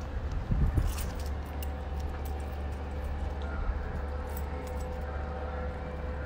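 Outdoor background with a steady low rumble, a faint steady hum, and scattered light clicks, most of them in the first few seconds.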